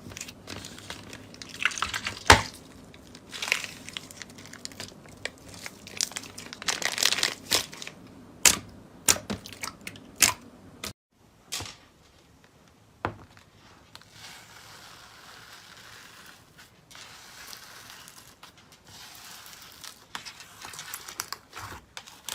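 Crackling and crinkling from something squeezed and crushed in the hands: a run of sharp cracks and bursts of rustling for about ten seconds, one more crack a little later, then softer steady rustling.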